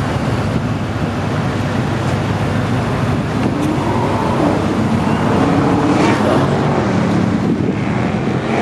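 Car engine idling with a steady, deep rumble.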